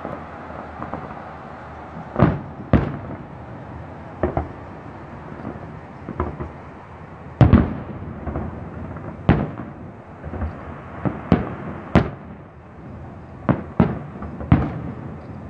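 Aerial fireworks shells bursting, about a dozen sharp bangs at uneven intervals, the loudest about halfway through, over a steady background hiss.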